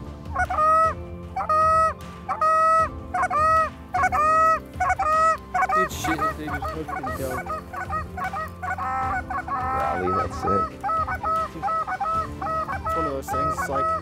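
Canada goose call blown by a hunter: long, evenly spaced honks about once a second, then from about halfway a fast run of short clucks at several notes a second, calling to incoming geese.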